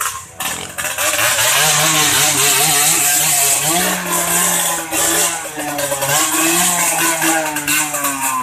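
An off-road vehicle engine labouring under load, its revs wavering and climbing a little about four seconds in.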